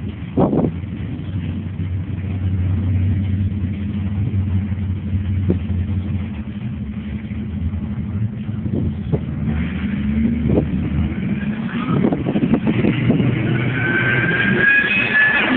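Ford SVT Lightning pickup's supercharged V8 running at a steady low idle, then revving up with a rising pitch and growing louder over the last few seconds. A high supercharger whine rises over it near the end. A sharp thump about half a second in.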